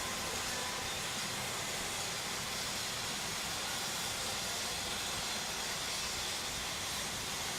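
Electric arc welding in progress: a steady hiss from the welding arc that runs without a break.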